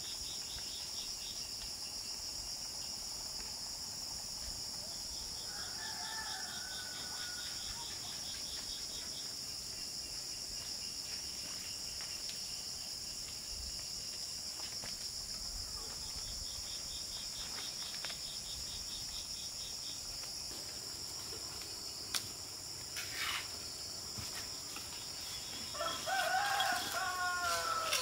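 Steady chorus of crickets and other insects, with pulsing trills coming and going. A rooster crows near the end, and there is a shorter fowl call about six seconds in. A couple of sharp knocks come about two-thirds of the way through.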